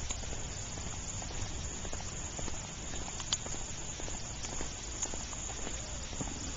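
Light patter of rain with scattered drops over a steady hiss.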